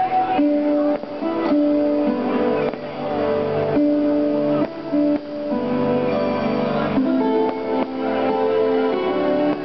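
Christmas show music: a slow melody of held notes over plucked strings.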